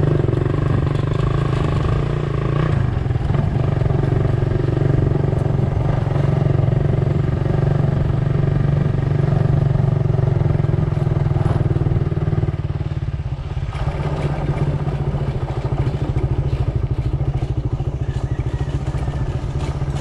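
A motor vehicle engine running steadily with a continuous low drone, dipping slightly in level about two-thirds of the way through.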